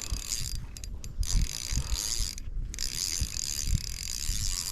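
Fishing reel cranking in a hooked bass, its gears whirring with two short pauses in the retrieve.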